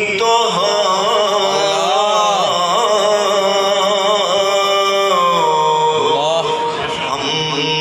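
A solo male voice chanting an Islamic devotional recitation in a slow, ornamented melody, holding long notes that waver and slide in pitch. Underneath there is a steady low drone.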